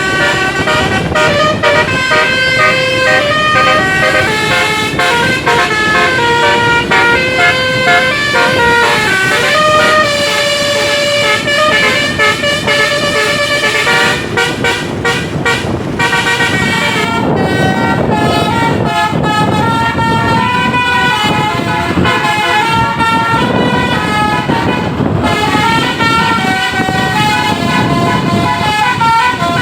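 Basuri "telolet" musical air horn on a bus playing a long tune of held notes that step up and down, over a steady low rumble.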